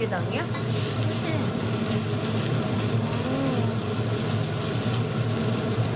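A steady low mechanical hum with a hiss over it, and faint voices underneath.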